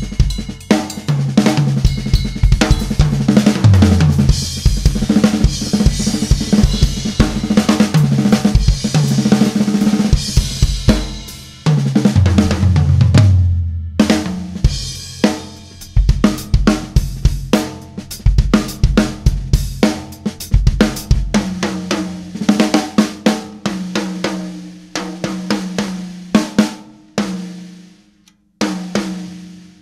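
Acoustic drum kit played solo: kick, snare, hi-hat and cymbals in busy grooves. Two tom fills run down in pitch from the high toms to the floor tom, about 3 and 12 seconds in, and the playing stops briefly near the end.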